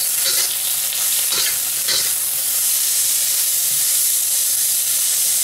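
Shredded cabbage, baby scallops and vegetables sizzling in hot oil in a wok, a steady hiss. A metal spatula scrapes and tosses them a few times in the first two seconds or so.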